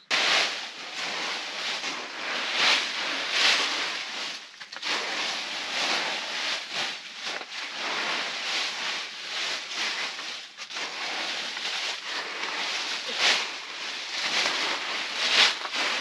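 Dry fallen leaves rustling and crackling as armfuls are handled and spread out, with irregular louder crunches.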